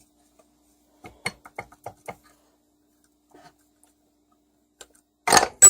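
A Tecumseh engine's stuck camshaft being worked loose by hand: a handful of light metal clicks and taps, then a loud metallic clatter near the end as it comes free.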